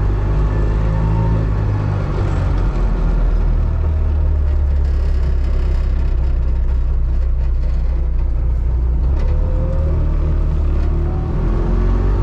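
A 1984 Trabant 601S's air-cooled 594 cc two-cylinder two-stroke engine pulling the car along the road. Its pitch climbs near the start, holds steadier through the middle, and rises again in the last few seconds as the car accelerates.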